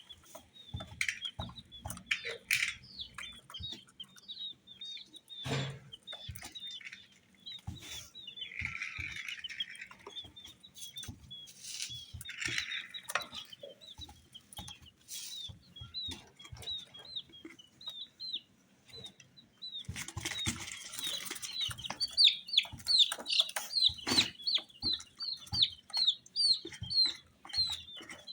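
Baby chicks peeping, a steady stream of short high chirps that gets busier near the end, with scattered taps and a few brief rustling noises.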